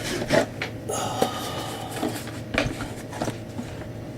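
Small tools and hard objects being handled and rummaged on a workbench: several sharp clicks and knocks, with a short metallic clatter and ringing about a second in.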